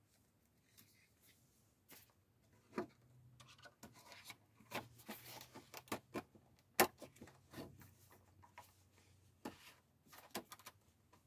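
Paper and stickers being handled on a desk: scattered soft rustles and rubs with small taps and clicks, the sharpest tap about seven seconds in.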